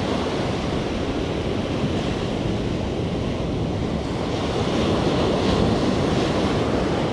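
Ocean surf breaking and washing up a sandy beach close by, with wind buffeting the microphone. The wash swells a little about five seconds in.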